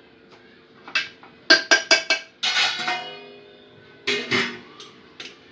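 Short intro music: a few separate notes, a quick run of four and then a couple of longer notes that ring on.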